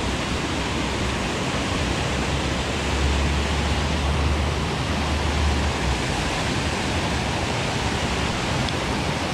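Steady rushing of water pouring over a low concrete weir, with a low rumble swelling for a few seconds in the middle.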